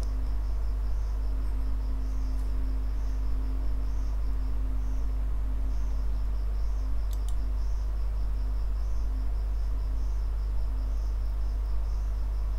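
Steady low hum with an insect chirping steadily in the background, its high pulsing call pausing briefly about five seconds in; a single click sounds about seven seconds in.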